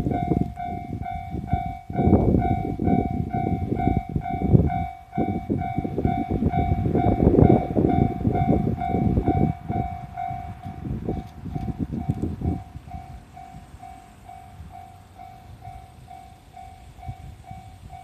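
Japanese level-crossing warning bell ringing steadily at about two strokes a second. Under it, a loud uneven low rumble fades about twelve seconds in.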